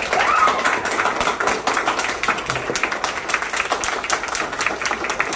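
A small audience of about twenty people clapping together. It starts all at once and keeps up steadily.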